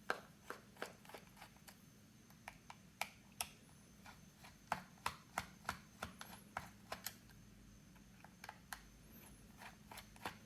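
Small screwdriver backing the screws out of a plastic battery-pack case: faint, irregular sharp clicks and ticks, several in quick clusters.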